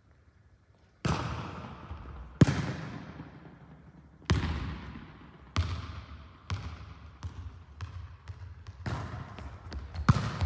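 A volleyball being struck and slapping on the floor in a large gym hall, about a dozen sharp smacks that each ring on in the hall's echo. They start about a second in, widely spaced at first, then come faster, roughly two a second, toward the end.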